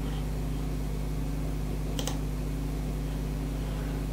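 A single computer mouse click about two seconds in, over a steady low hum.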